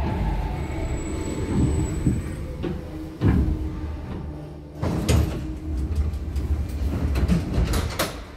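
Modernized metro train heard from inside the car as it runs into a station and stops: a heavy low rumble broken by several sharp clunks, with a faint high whine early on. Near the end the doors slide open and the rumble falls away.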